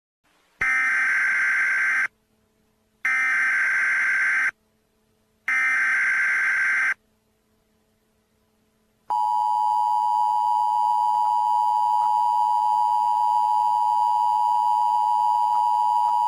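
Emergency Alert System signalling: three shrill SAME digital data bursts, each about a second and a half long with a second's gap between, making up the header that opens a new alert. About nine seconds in, the steady two-tone EAS attention signal (853 and 960 Hz together) begins and holds.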